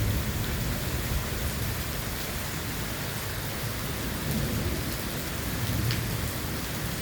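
Steady rain falling during a thunderstorm, with a low rumble of thunder underneath that swells slightly twice.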